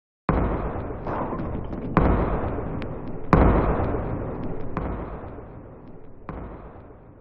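A heavy ball thudding down wooden steps: five heavy thuds about a second and a half apart, the loudest about three seconds in, each trailing into a low rolling rumble. The rumble grows fainter toward the end as the ball rolls away.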